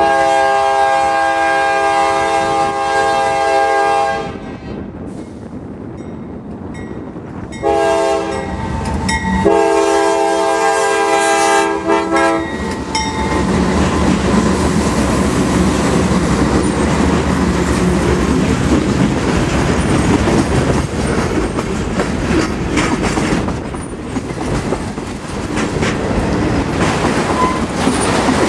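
Diesel freight locomotive's multi-note air horn sounding three blasts: a long one, a shorter one a few seconds later, then another long one. From about 13 s the locomotives pass close by and a long string of autorack freight cars runs past, the wheels clicking steadily over the rail.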